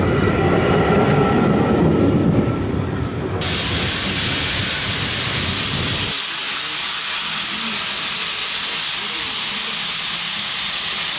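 Railway coaches rolling past close by, their wheels rumbling on the rails. Then a steady loud hiss of steam venting from a steam tank locomotive.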